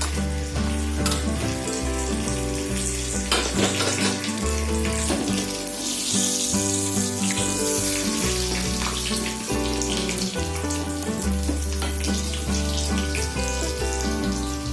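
Background music with the crackling sizzle of a tempering underneath: mustard seeds, cumin, curry leaves and crushed garlic frying in hot oil. The sizzle is strongest about halfway through.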